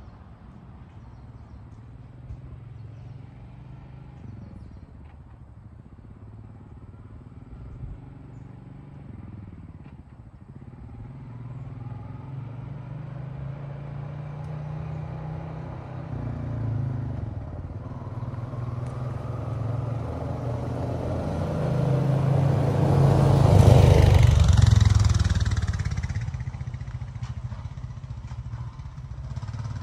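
Honda Rancher 420 ATV's single-cylinder engine running as the quad approaches and passes close by. It is loudest a little over three-quarters of the way through, then fades off.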